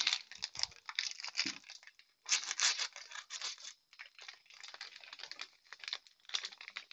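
Small plastic sachets being torn and cut open and crinkled in the hands: irregular crackling, loudest from about two seconds in.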